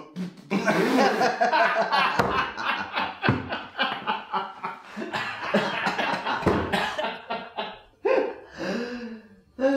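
A group of men laughing loudly, overlapping, easing off about seven seconds in, with a few more bursts of laughter near the end.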